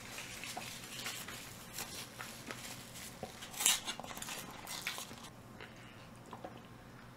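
A paper drink carton being handled and pulled open, with a sharp crinkling rustle about three and a half seconds in, among small clicks and taps of eating utensils.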